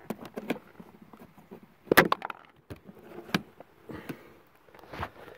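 Handling noise while a flashlight is set up and positioned: a string of short clicks and knocks, the loudest about two seconds in.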